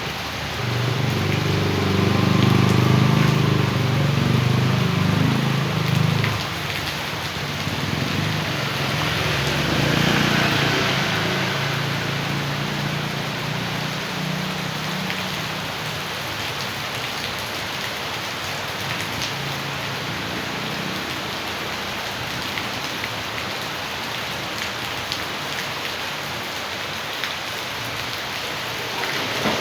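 Rain falling with rainwater rushing along as runoff, a steady hiss. A low rumble swells for the first six seconds or so and again around ten seconds in, then the rushing settles to an even level.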